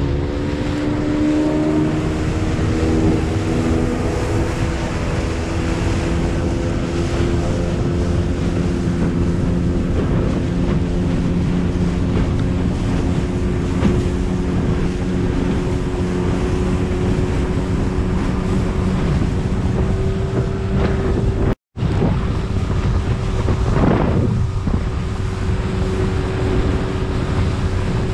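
Small skiff's outboard motor running under way, its pitch climbing over the first couple of seconds and then holding steady at speed. Wind buffets the microphone and water rushes along the hull.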